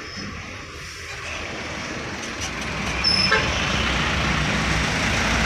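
Truck driving past close by, its engine and tyre noise growing louder as it nears, with a short horn toot about three seconds in.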